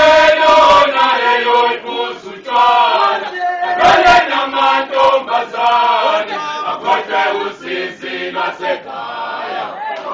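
Isicathamiya male choir singing a cappella in close harmony: long held chords at first, then shorter rhythmic phrases. A sharp knock sounds about four seconds in.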